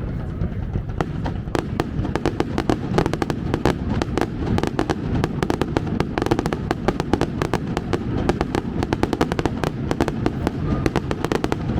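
Fireworks display: a dense run of rapid crackling pops starting about a second in, over a continuous low rumble of bursting shells.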